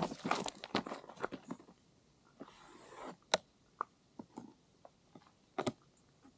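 Handling noise: a scattering of sharp clicks and taps, with a short rustle about two and a half seconds in and sharper clicks a little after three seconds and near the end.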